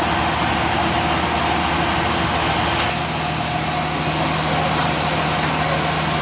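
An engine running steadily at idle, its hum even throughout, with a slight shift in its tone about three seconds in.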